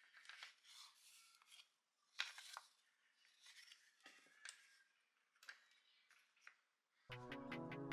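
A few faint, short scraping and clicking sounds of hand work on materials, spaced irregularly. About seven seconds in, electronic music with a steady beat starts abruptly.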